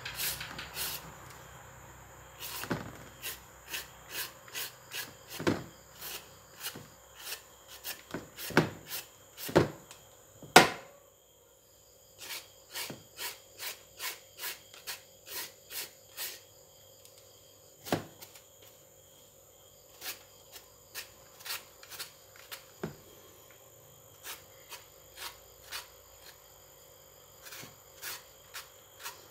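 Hard green mango being shredded with a hand shredder. Runs of short scraping strokes come about two a second, with pauses between runs and a few louder knocks about ten seconds in. The flesh is hard.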